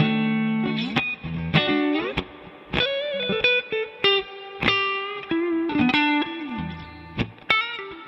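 Fender Custom Shop Stratocaster electric guitar played through an amplifier: a melodic line of picked single notes and chords, with string bends and slides.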